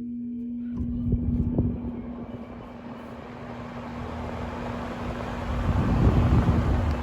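5,000 BTU window air conditioner running on low fan: a steady motor hum under a building rush of air from the blower. Irregular low rumbling swells come about a second in and again near the end.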